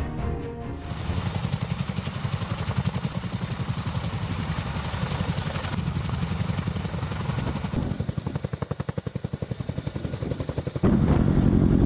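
CH-47 Chinook tandem-rotor helicopter hovering, its rotor blades beating in a rapid, even pulse over a steady high whine from its Lycoming T55 turboshaft engines. Near the end the sound jumps to a louder, denser rotor noise.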